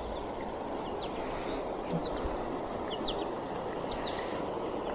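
Steady rush of a flowing stream, with scattered short, quick chirps of small birds above it.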